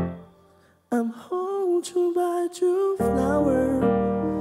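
Background music fades out, and after a brief pause a man starts singing into a microphone with held, gliding notes over sparse backing; a fuller instrumental accompaniment comes in about three seconds in.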